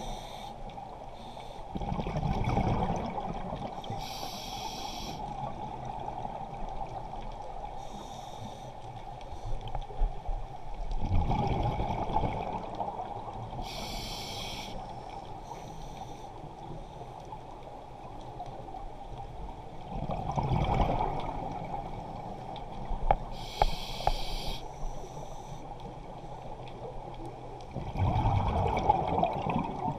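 Scuba diver breathing through a regulator underwater. Each exhale is a low burst of exhaust bubbles and each inhale a short high hiss from the regulator, about one breath every nine seconds, over a steady underwater hum.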